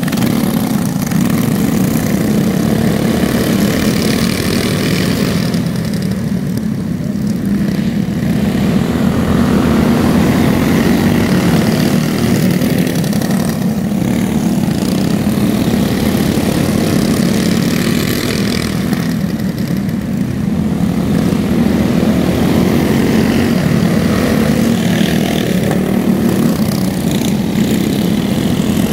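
A pack of dirt-oval racing go-kart engines running together in a dense, buzzing drone. It swells and eases every six or seven seconds as the karts lap past.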